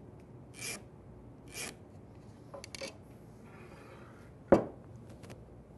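Pencil scratching along the edge of a plastic speed square on a wooden board, marking a layout line: two quick strokes about a second apart. Then a few light clicks, and a single sharp knock about four and a half seconds in, the loudest sound.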